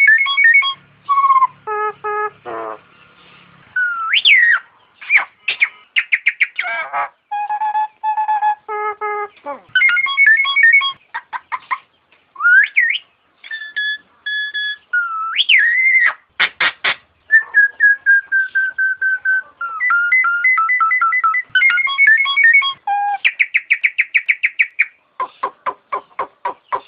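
Nias hill myna singing a long, varied series of loud whistled calls: steady clear notes, rising and falling slurs, and rapid rattling runs of short clicks, with short pauses between phrases.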